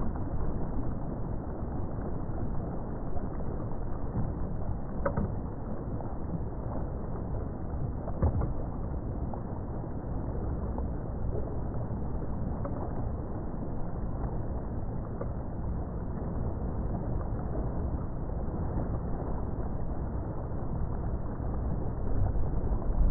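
Steady low rumble and rush of a motorboat underway, its engine and the water churning past the hull blending into one even noise.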